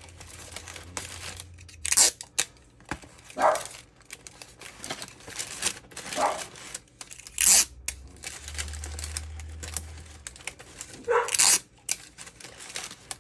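Adhesive tape pulled off the roll and torn several times, some pulls with a short squeal, between crinkling of wax paper and a cardboard box.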